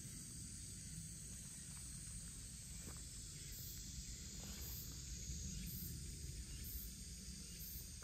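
Insects calling in a steady high hiss, with a faint, very high pulse repeating about once a second, over a faint low rumble.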